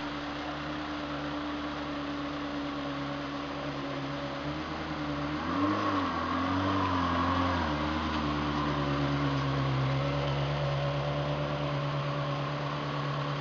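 Ferrari 360 Modena's V8 running at low revs as the car rolls slowly past. About halfway through, the engine note wavers up and down and gets louder for a couple of seconds, a light throttle blip, then settles back to a steady low-speed run.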